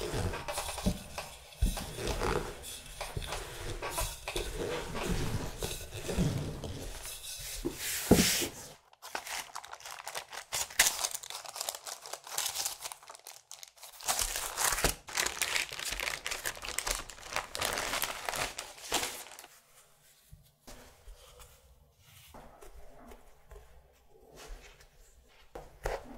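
Hands working laminated dough and a butter sheet on a floured silicone mat: rubbing, soft crinkly scraping and peeling as the dough is lifted over a rolling pin and folded, with a sharp knock about eight seconds in. The handling turns much quieter in the last several seconds.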